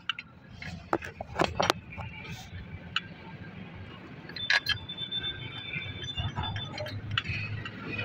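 Metal hand tools clinking and knocking against the steel parts of a tractor's brake assembly: a run of sharp, irregular clicks, loudest about a second and a half in and again past the halfway point.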